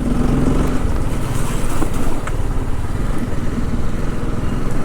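Motorcycle engine running steadily while riding, under a continuous rush of wind and rain noise on the microphone.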